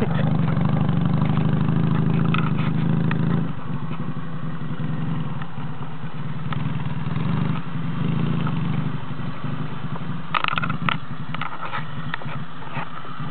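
Dnepr sidecar motorcycle's flat-twin engine running as the bike pulls away. It is loud for the first few seconds, then drops to a quieter, steady sound as it rides off into the distance.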